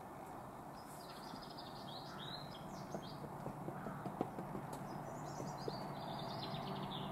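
Low rumble of an approaching Class 66 diesel freight locomotive, slowly growing louder. A small bird sings two short twittering phrases over it, about a second in and again near the end.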